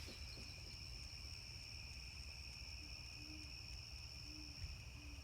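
Faint outdoor ambience: a steady high insect drone, with four soft, low bird hoots in the second half.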